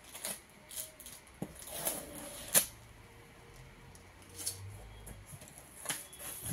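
Packing tape being peeled and ripped off a cardboard box, a series of crackling rips with one sharp snap about two and a half seconds in. Near the end the cardboard flaps are pulled open with a scrape.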